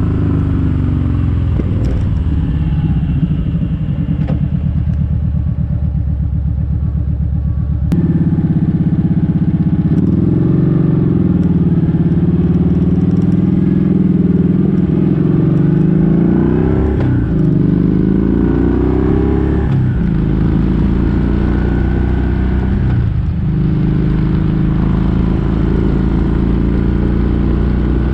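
Kawasaki Vulcan 1700 Vaquero's V-twin engine running on the road, its pitch rising and falling several times as the bike accelerates and shifts gears.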